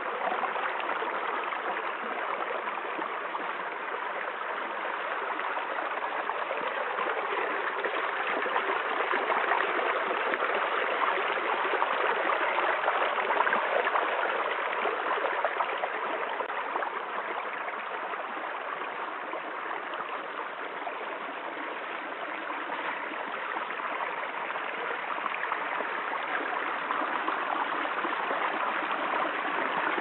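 Small rocky stream trickling and splashing over stones in low cascades: a steady rush of water that swells slightly for a few seconds in the middle.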